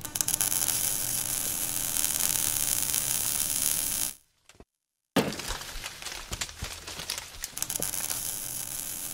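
Sound effect for an animated logo reveal: a crackling, hissing fire-and-sparks effect over a low hum for about four seconds, cutting off briefly, then a sudden hit about five seconds in, followed by more crackling with sharp clicks.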